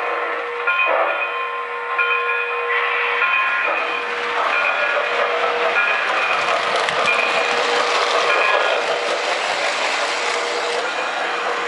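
Model train running on the layout track: wheels rumbling and clicking along the rails, getting louder as the cars pass close, with steady whistle-like tones sounding on and off.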